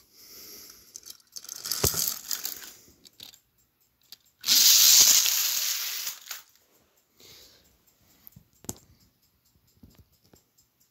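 Plastic toy trains and track being handled and pushed, giving bursts of clatter and rustle with a few sharp clicks; the loudest burst comes about four and a half seconds in and lasts nearly two seconds.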